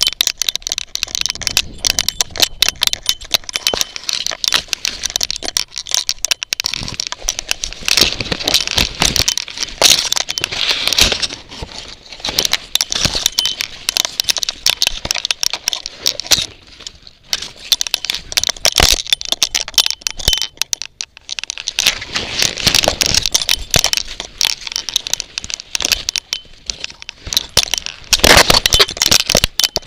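Leaves, stems and twigs brushing and scraping against a dog-collar-mounted camera as the dog pushes through bushes, a dense run of crackles and rustles. It eases off briefly a few times and is loudest near the end.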